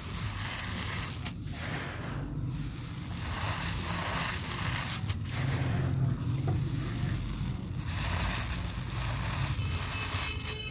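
Dry, gritty cement shapes crumbling and being crushed: a steady grainy crackle with a couple of sharper snaps.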